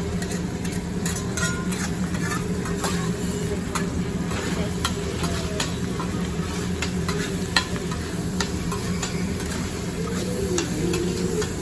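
Food sizzling on a hibachi griddle, with many sharp clicks and scrapes of metal utensils on the hot plate, over a steady low restaurant hum.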